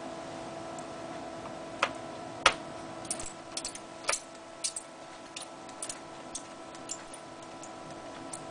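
Irregular small clicks and taps of hard plastic and metal laptop parts being handled during a hard-drive swap, about a dozen in all, the loudest two around two seconds in, over a steady hum.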